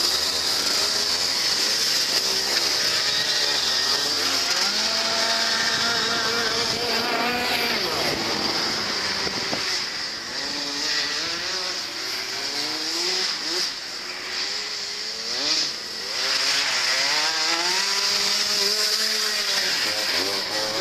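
Two go-kart engines revving, their pitch repeatedly rising and falling as the karts slide and accelerate around the track.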